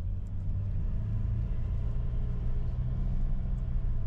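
Car driving along the road: a steady low rumble of road and engine noise with a faint even drone.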